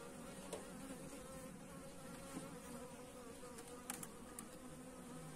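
Honeybees buzzing faintly and steadily around an open hive. A few light clicks of a hive tool against the wooden frames, about four seconds in.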